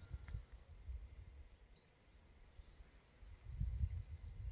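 Crickets chirring in a steady high trill, over uneven low rumbling on the microphone that swells about three and a half seconds in.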